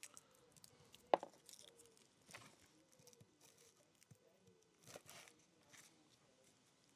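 Faint crackling and rustling of dry, papery shallot skins as shallots are trimmed by hand with a knife, with one sharp tap about a second in.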